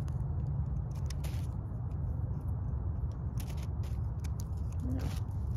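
Jigsaw puzzle pieces being picked up and set down, giving scattered light clicks and taps over a steady low rumble of wind on the microphone.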